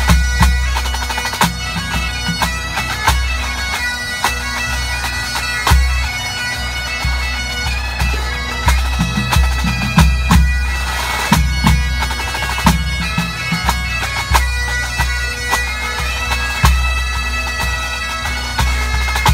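Pipe band playing: Highland bagpipes sound a steady drone under the chanter melody, with snare drums and a bass drum beating out the rhythm.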